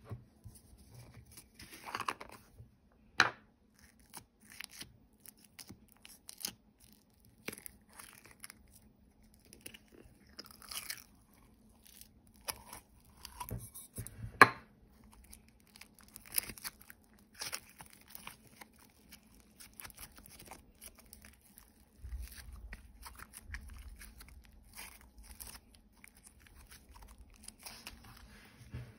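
Cellophane and plastic packaging crinkling and rustling, with scattered taps and clicks of plastic containers being handled and set down; sharp clicks about 3 and 14 seconds in.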